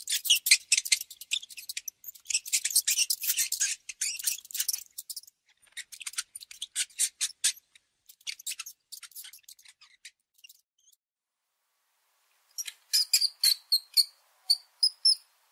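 Mouse sounds: dense bursts of high-pitched scratchy clicking and chittering that thin out and stop. After a short pause, a quick run of about ten sharp squeaks comes near the end.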